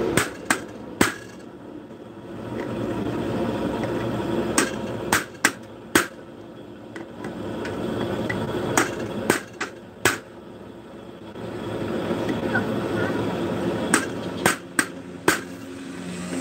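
A hammer striking a car clutch disc in four short bursts of three or four sharp taps each, a few seconds apart. A steady background noise swells between the bursts.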